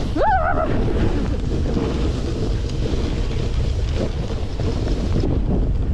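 Wind rushing over the microphone of a camera on a snowboarder riding downhill, mixed with the board hissing over the snow. A short whoop from a voice comes just after the start.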